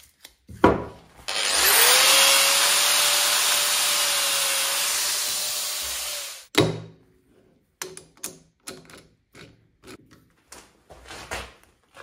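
A small electric power tool's motor spins up and runs for about five seconds with a loud rush of air, then cuts off suddenly. A knock comes just before it, and light knocks and clicks of the bowl blank and chuck being handled on the lathe bed follow.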